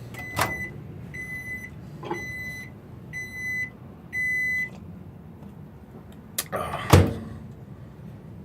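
Hamilton Beach countertop microwave sounding five short, high beeps about a second apart, the signal that its heating cycle has finished, over a low hum. A couple of seconds later come two loud clunks, typical of the door being released and opened.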